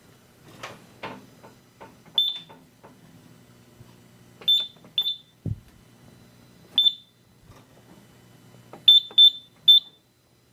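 Keypad of a Simplex 4100U fire alarm control panel: buttons clicked at irregular intervals, each press answered by a short high beep, seven in all, the last three close together. A single low thump about halfway through.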